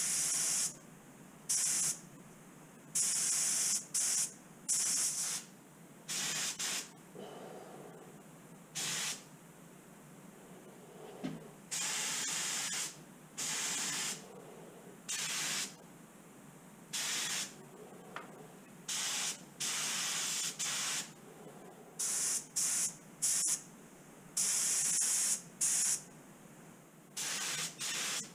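Gravity-feed compressed-air spray gun spraying Cerakote in repeated short trigger pulls: about twenty bursts of hiss that start and stop sharply, most under a second, a few lasting a second or more.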